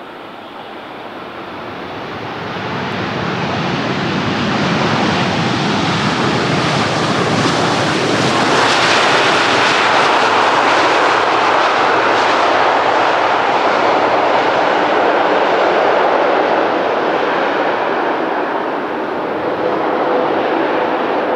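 Jet engine noise of a Boeing 787-10 airliner on landing. The roar builds over the first few seconds, is loudest through the middle, then eases slightly, with a steady tone coming in near the end.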